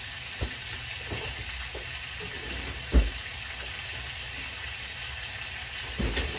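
Tomato and onion frying in oil in a pan: a steady sizzle, with a few light knocks, the loudest about halfway through and another near the end.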